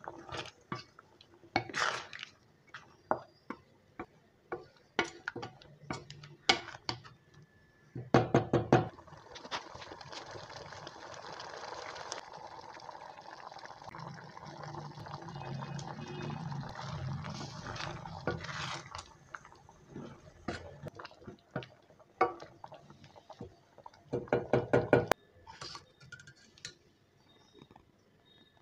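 A thick lentil-and-chayote stew being stirred in a stainless steel pot: liquid sloshing, and a spatula and ladle knocking and scraping against the pot's sides, in clusters of quick knocks twice. A steadier stretch of liquid sound runs through the middle.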